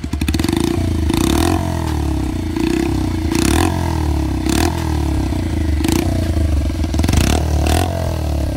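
Bajaj Pulsar 125's single-cylinder engine running through an aftermarket Akrapovic-style exhaust, its throttle blipped about seven times over a steady idle, each rev rising and falling quickly with a sharp raspy crack at its peak.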